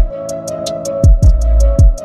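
Background music with a beat: deep bass drum hits that drop quickly in pitch, quick hi-hat ticks and a steady held synth tone.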